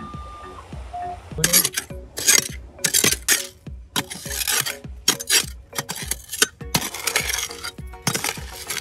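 A small hand pick digging into sand and beach pebbles: irregular scraping strikes with stones clinking against each other, starting about a second and a half in. Before the digging, a metal detector gives a short steady beep over the target and then a brief lower one. Faint background music runs underneath.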